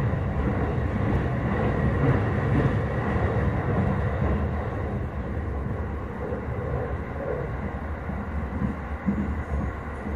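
Steady running noise of a JR Utsunomiya Line electric commuter train heard from inside the carriage: low rumble of wheels on the rails with a hiss over it, easing slightly in loudness over the second half.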